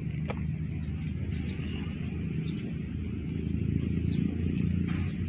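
A motor running steadily with a low, even rumble.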